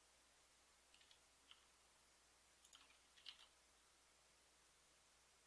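Faint scattered clicks from a computer mouse and keyboard over near-silent room tone: a few single clicks about a second in, then a quick cluster around the middle, the loudest at about three seconds in.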